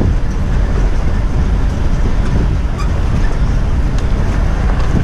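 Loud, steady rumbling noise, heaviest in the low end, with faint scattered ticks and rattles, like a vehicle moving along.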